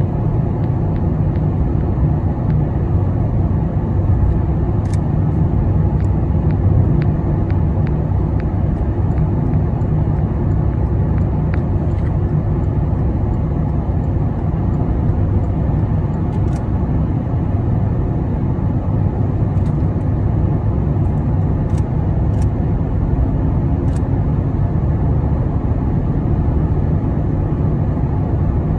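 Steady road and engine noise heard from inside a moving car's cabin: a low, even rumble, with a few faint ticks now and then.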